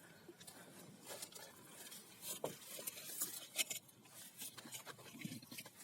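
Faint, scattered light taps and rustles, with a few brief sharp ticks.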